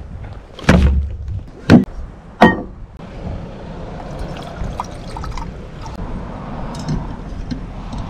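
Three sharp knocks of gear being set down on a wooden picnic table, then water pouring steadily from a plastic bottle into a stainless steel cup for several seconds.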